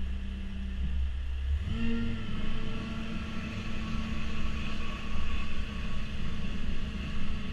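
Mecalac AX850 compact wheel loader's diesel engine running steadily with a low rumble; its pitch steps up slightly a little under two seconds in and then holds.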